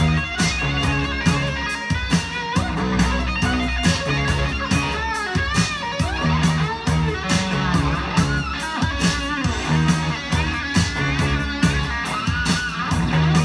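Rock-style music with electric guitar, bass and a steady drum beat, playing back over a pair of Marten Coltrane floor-standing loudspeakers driven by Naim electronics.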